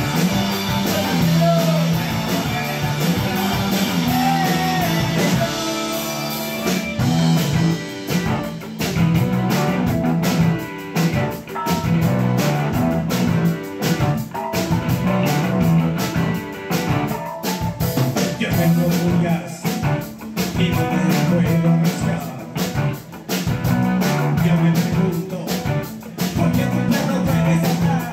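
Live new wave rock band playing: electric guitar, bass and drum kit with a male singer. The singing is strongest in the first few seconds; from about seven seconds in, the drums beat hard and steady.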